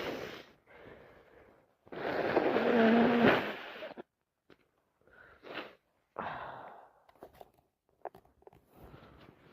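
A person sneezing: one loud, drawn-out voiced sneeze about two seconds in, with short sharp breaths and sniffs before and after it.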